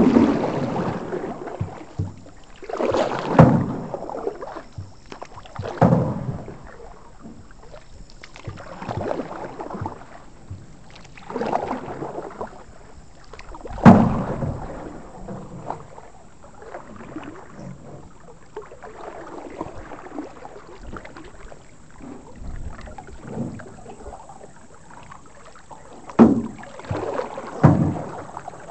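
Canoe paddles stroking through the water every few seconds, each stroke a splash and swish. Sharp knocks of a paddle against the metal canoe come at the start, about halfway through, and twice near the end.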